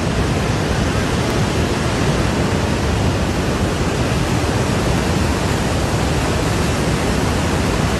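Muddy flash-flood torrent rushing past close by: a dense, steady, loud wash of water noise.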